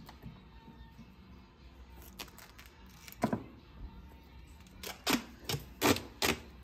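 Duct tape being ripped off the roll in short, loud, raspy pulls: one about three seconds in, then four in quick succession near the end.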